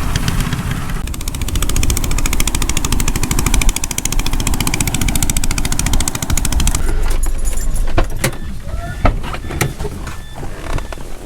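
Motor vehicle engine running with a steady low rumble. For several seconds there is a rapid, even rattle over it, and from about seven seconds in, scattered knocks and clicks.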